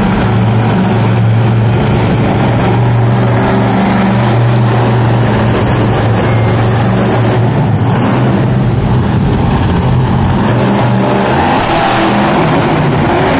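Boneshaker monster truck's engine running loud and revving up and down as the truck drives and stands up on its rear wheels on crushed cars.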